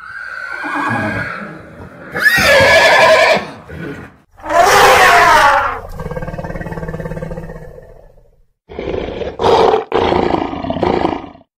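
Wild animal calls one after another: a horse neighing in the first seconds, two loud calls in the middle, and a lion roaring near the end.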